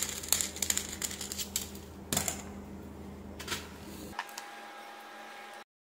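Thin metal tool scraping solder residue out of a desoldering gun's glass solder-collection chamber: a run of small irregular scratches and clicks that stops about four seconds in.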